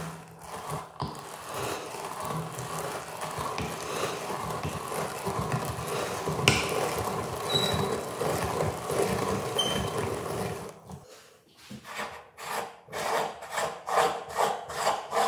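Hand-cranked cast-metal meat grinder crunching M&M candies and forcing them through its die plate, a steady gritty rasping with a sharp click about six seconds in. After a brief lull near the end, a quicker rhythmic rasping sets in, about three strokes a second.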